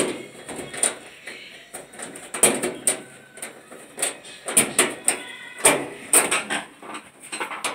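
Irregular knocks, rattles and scraping from dryer parts being handled and shifted during a repair, about a dozen separate bumps and scrapes.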